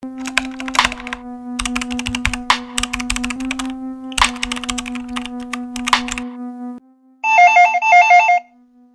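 Rapid key clicks of text being typed, over a steady low hum, for about six seconds; then a telephone rings twice near the end, each ring a fast warbling trill.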